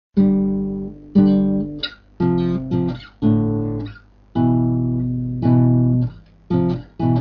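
Acoustic guitar strumming the intro of a song, about one chord a second, each ringing and fading before the next, with two quicker strums near the end.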